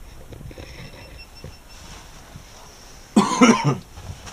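A person coughs once, a short burst about three seconds in, over the low, steady hum of the gondola cabin.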